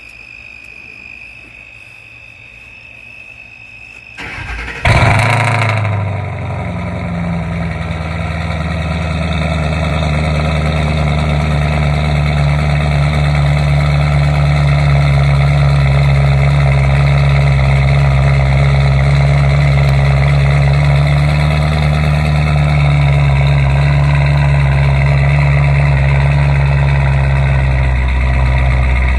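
Ford Mustang GT's 4.6-litre three-valve V8 being started: it cranks and fires about four to five seconds in, flares, then settles into a steady idle. A faint steady high tone is heard before the start.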